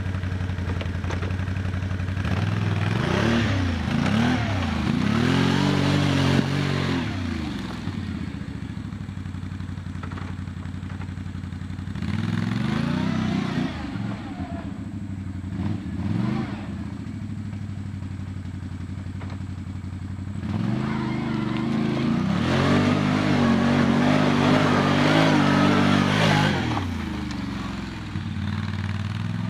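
Can-Am Outlander L 570 XMR ATV's V-twin engine revving up and down in three long surges, settling back to a low idle between them, as the quad pulls through mud.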